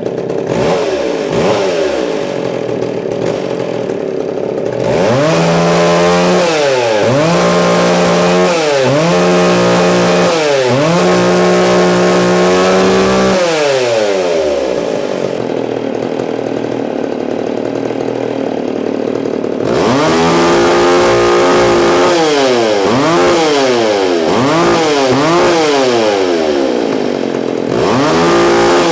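McCulloch Eager Beaver 3.7 two-stroke chainsaw idling, then revved up and down over and over, briefly held at high revs. It drops back to idle for several seconds in the middle, then gets another run of quick revs near the end.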